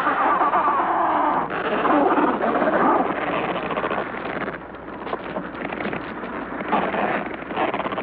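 Adélie penguins calling in a crowded breeding colony: harsh, rasping calls, loudest in the first three seconds, dropping away about halfway and rising again near the end.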